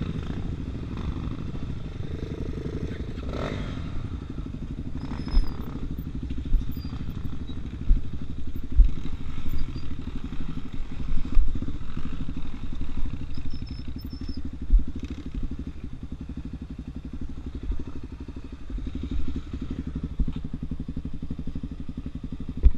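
Enduro motorcycle engine running steadily, with scattered short knocks and clatter over it.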